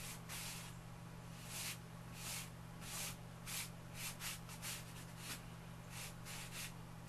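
Stick of soft lecturer's chalk rubbing across a drawing surface in short, quick strokes, about two a second and unevenly spaced, each a brief scratchy hiss.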